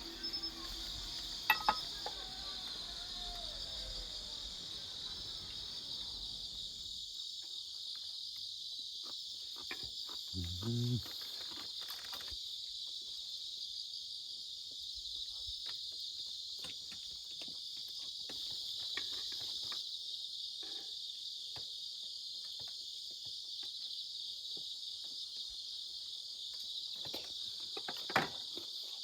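Steady high-pitched chorus of crickets and other night insects. There is a short low sound about ten seconds in and a sharp click near the end.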